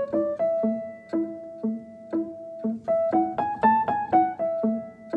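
Light instrumental background music led by short piano notes, with a low figure bouncing about twice a second and a run of notes that climbs and falls back a little past halfway.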